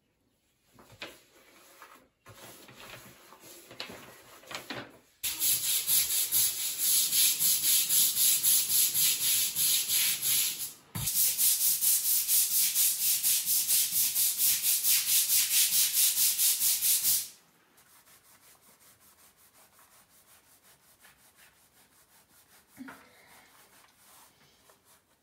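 A stiff long-handled scrub brush scouring a wet brick-tiled floor in fast, even strokes, about three a second. The scrubbing stops abruptly and only faint rubbing follows.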